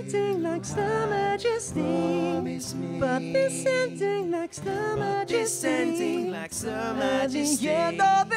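Three male voices singing in close harmony over a strummed acoustic guitar, drawing out long notes that bend and slide.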